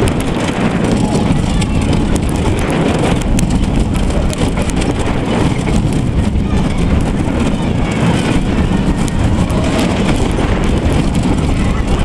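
Bobsleigh roller coaster car running at speed through its open steel trough: a loud, steady low rumble of the wheels on the track, with scattered light clicks and rattles and wind buffeting.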